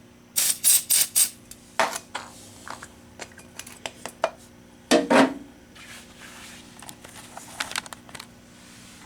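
A run of sharp clicks and knocks from handling an aerosol can of smoke-detector test smoke while setting off a photoelectric smoke detector, with a louder thump about five seconds in.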